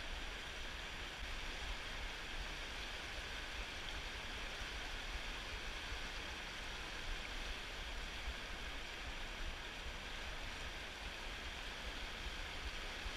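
Fast, shallow river water rushing steadily over rocky riffles around the wader.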